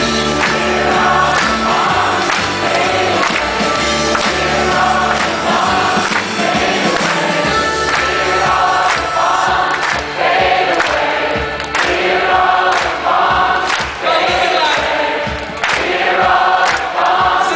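A large crowd singing a repeated refrain together with the band, a mass of voices over instrumental backing with a steady beat.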